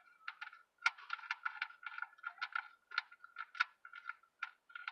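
Wrench working the 13 mm oil drain plug loose under a Mercedes-Benz C320: irregular metallic clicks and rattles, several a second.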